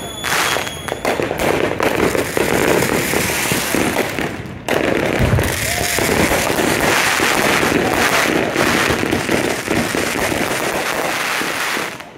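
Neighbourhood fireworks going off without a break: dense crackling and popping from firecrackers and aerial shells, with a high whistle near the start and a deep boom about five seconds in. The barrage eases off near the end.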